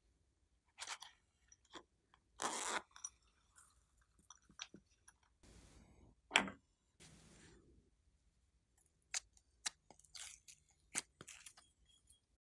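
Scattered faint clicks, taps and rustles of slime supplies being handled: a small plastic container, glitter shaken into a glass tray of glossy slime, and sticky squishes of pink putty. One sharper click comes a little past halfway.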